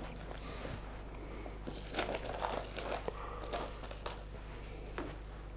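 Paper rustling and crinkling as a tablet of marzipan is wrapped by hand in paper, with a cluster of sharper crinkles from about two seconds in, over a faint steady low hum.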